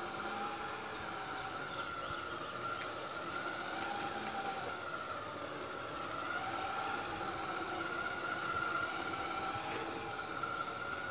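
1:14 scale RC Zetros 6x6 truck driving under load, its electric drive motor and gearbox giving a steady whine that wavers slowly up and down in pitch as the speed changes.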